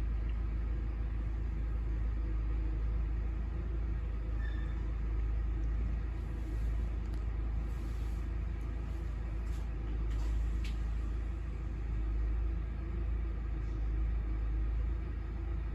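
Steady low rumble of an idling truck engine, with a few faint clicks about ten seconds in.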